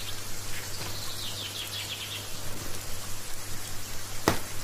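Plastic wrapping on a rolled carpet crinkling and rustling as it is handled and cut open with scissors, with a sharp snip of the scissors near the end.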